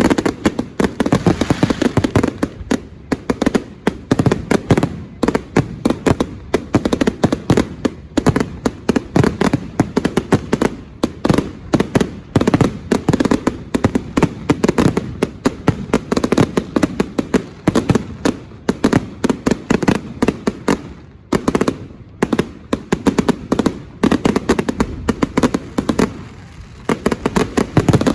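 Fireworks display going off in a dense, rapid barrage of bangs and crackles, many each second, thinning briefly a couple of times near the end.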